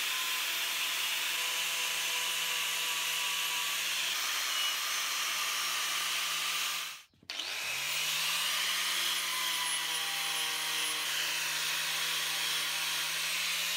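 An angle grinder with an abrasive disc runs steadily against a steel pipe, stripping paint off it. About halfway through, the sound cuts out for a moment, then the grinder comes back and its hum rises as it spins up to speed.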